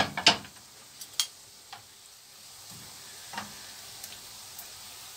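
Yoyo doughnut rings deep-frying in oil in a frying pan: a steady sizzle, with a sharp clatter of a metal spoon on the pan right at the start and a few light taps later as the doughnuts are turned.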